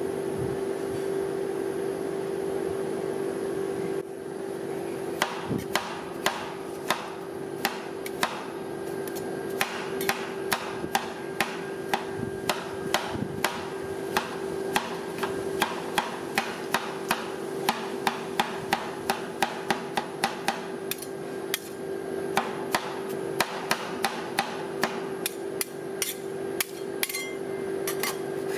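Two metal spatulas chopping apple pieces on a steel cold plate for rolled ice cream: sharp metal-on-metal taps against the plate, about two to three a second. The taps start about four seconds in and break briefly about three-quarters of the way through. A steady hum runs underneath.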